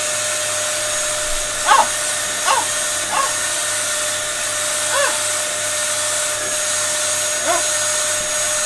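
Dyson DC07 Animal upright vacuum cleaner running steadily with its turbine nozzle on the hose: a steady hum with a high whine. Five short pitched cries rise and fall over it, the loudest about two seconds in.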